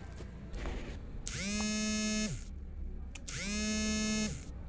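An electric buzz that comes on and off in a regular pattern, about a second on and a second off, twice. Each buzz slides up in pitch as it starts and sinks as it stops, like a small vibrating motor spinning up and down.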